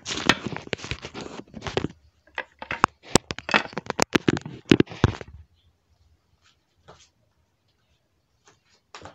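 Close handling noise from a phone being held and moved about: rustling with sharp clicks and knocks as fingers and clothing rub against it. This stops about five seconds in, when the phone is set down, and only a few faint taps follow.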